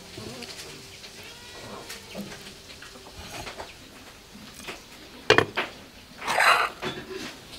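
Dish-handling sounds as pieces of roast chicken and a cleaver are set down on a ceramic serving plate: soft knocks, then a sharp clink about five seconds in, followed by a short rasping sound.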